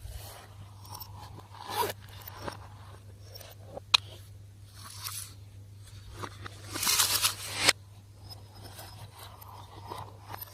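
Slime being squished and stretched by hand: irregular sticky crackles and scrapes, with a sharp click about four seconds in and a longer, louder stretch near seven seconds.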